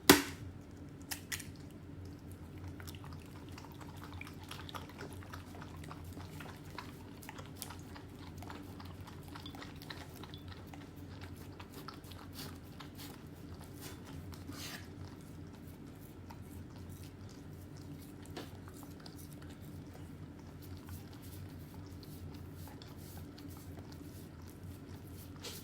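A German Shepherd chewing and biting food, close up: many small irregular wet clicks and crunches. A single loud sharp knock comes right at the start. A steady low hum runs underneath.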